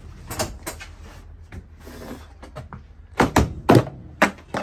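Knocks and bangs of demolition work as the truck's interior is torn out: a few lighter knocks, then four loud bangs in quick succession in the last second and a half.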